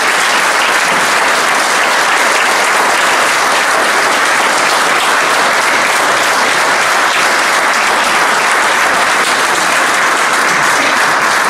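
Audience applauding steadily, a long dense round of clapping.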